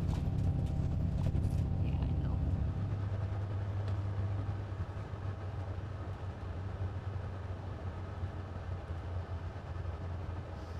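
Steady low rumble of a moving bus heard from inside the passenger cabin: engine and road drone, which turns quieter about four to five seconds in.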